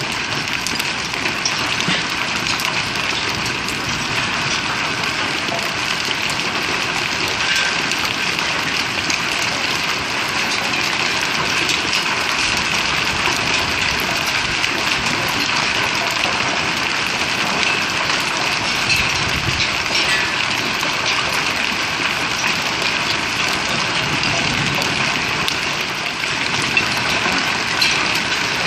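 Hail falling hard: a steady, dense patter of hailstones hitting the ground, with scattered sharper clicks.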